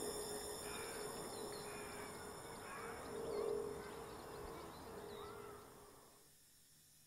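A noisy ambient drone with a steady low hum and faint chirping, fading away about six seconds in.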